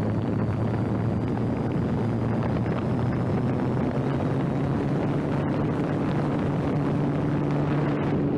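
Small electric motor and propeller of a radio-controlled floatplane running steadily, with wind rushing past. The hum steps up slightly in pitch about halfway through, and a faint high whine slowly rises.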